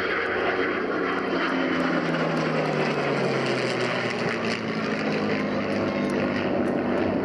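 An F-22 Raptor's twin Pratt & Whitney F119 jet engines and a P-51 Mustang's Merlin V12 piston engine flying past together in formation. The combined roar is steady, and the engine tone drops in pitch as the pair passes by, a Doppler fall.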